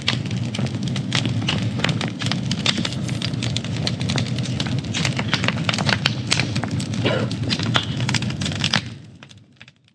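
Large stacked-log campfire burning, the wood crackling and popping densely over a steady low rumble; the sound fades out about nine seconds in.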